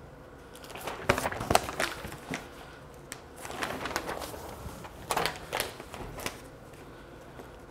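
Newspaper sheets rustling and crinkling in several short bursts as they are unfolded and laid out in layers on the floor.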